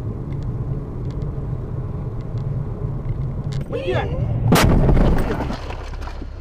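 Steady engine and road rumble heard from inside a moving car, then a brief wavering cry just before a loud crash about four and a half seconds in as the car collides with a pickup truck crossing in front of it, the crunch lasting about a second.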